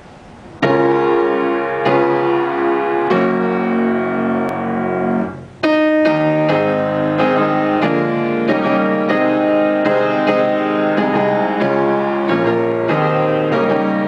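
Piano being played: three held chords struck over the first few seconds, a short fade just after five seconds, then a quicker run of chords and notes to the end.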